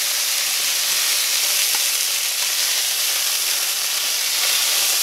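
Hot oil sizzling steadily in a cast iron skillet as seared chicken thighs are lifted out with tongs.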